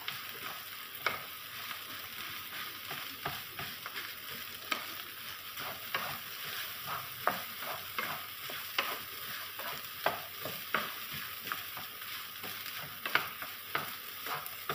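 Cooked rice being stir-fried: a wooden spatula stirs and breaks up the rice in a frying pan, with irregular knocks and scrapes against the pan over a steady sizzle of hot oil.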